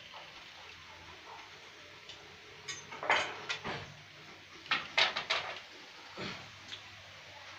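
A few short knocks and clatters of wood being handled at a miter saw, in a cluster about three seconds in and another about five seconds in, with a softer knock near six seconds.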